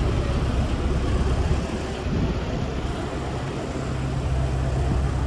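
Mitsubishi bus's diesel engine running with a steady low rumble, a steady low hum joining about three seconds in.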